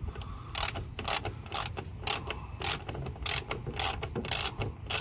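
Hand socket ratchet clicking in short back-and-forth swings, about two bursts of clicks a second, as a fan shroud bolt is undone.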